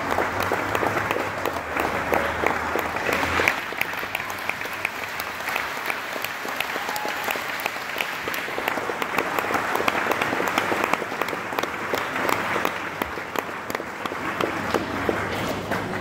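Audience applauding, many hands clapping.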